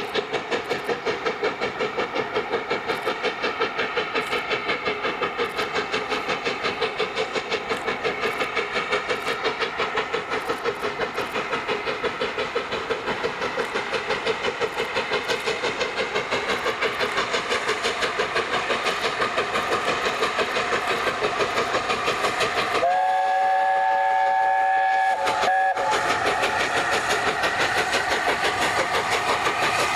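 LNER A4 Pacific steam locomotive 60007 Sir Nigel Gresley working past with rapid, even exhaust beats. About three-quarters of the way through it sounds its chime whistle, a chord of several steady notes held for about two and a half seconds with a short break just before it stops.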